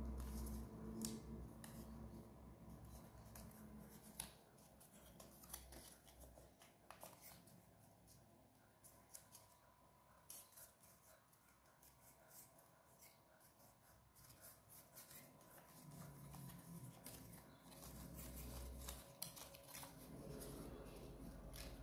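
Faint crinkling and small clicks of stiff paper strips being folded and pressed between the fingers, with a low rumble at the start and again near the end.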